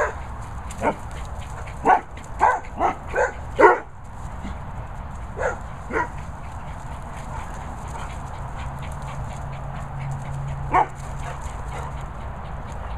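Dogs barking in play: a quick string of short barks in the first four seconds, two more around five to six seconds in, and a single bark about eleven seconds in.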